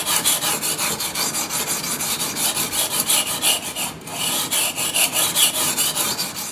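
A knife blade being stroked back and forth on a 320 grit diamond sharpening plate. It makes a rapid rasping scrape at about five strokes a second, with a brief break about four seconds in.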